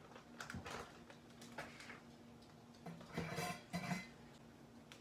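Dishes and cutlery being handled: a few light clinks and knocks, then a louder run of clatter about three seconds in, over a steady faint hum.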